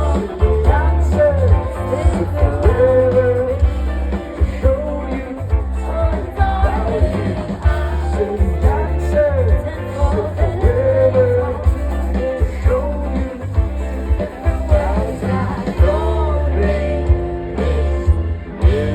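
Indie rock band playing live: a sung melody over drums, guitar and a heavy, booming bass.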